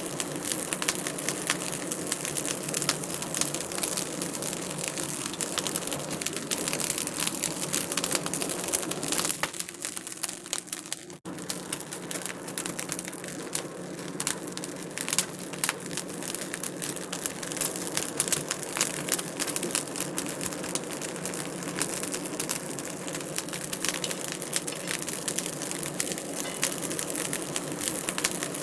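Fireplace fire crackling: a steady hiss thick with small, irregular sharp pops and crackles. It sags briefly about ten seconds in, then cuts straight back in and carries on.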